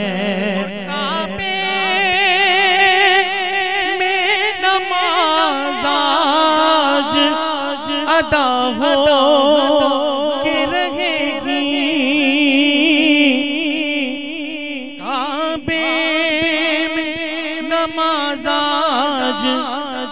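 A man's solo voice singing an Urdu manqabat, a devotional praise poem, in long drawn-out ornamented notes with a wavering vibrato.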